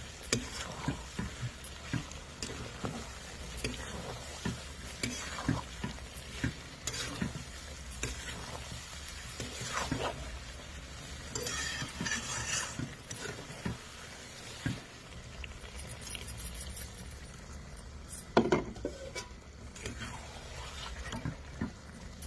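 Chicken curry being stirred in a pan: a metal spoon knocks and scrapes irregularly against the pan while the masala sizzles, over a steady low hum.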